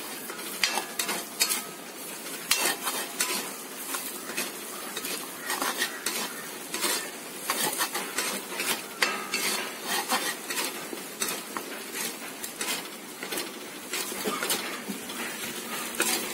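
Green chillies, crushed ginger and garlic frying in oil in a metal kadai, sizzling steadily while a steel spoon stirs and scrapes them, clinking against the pan many times.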